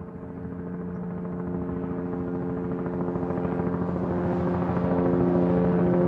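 Helicopter in flight: a steady engine hum over a fast rotor chop, growing steadily louder through the whole stretch as if it were coming closer.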